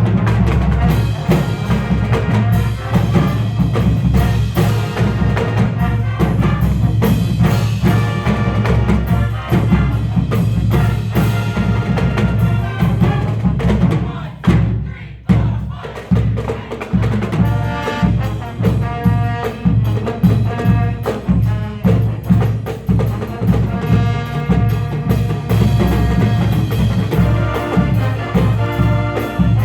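Marching band playing: brass over a steady, driving drum beat, with a brief drop in the sound about halfway through.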